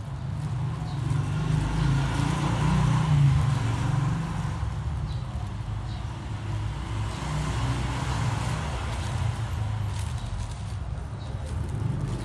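Low rumble of a motor vehicle engine running, swelling about two to four seconds in and then holding steady.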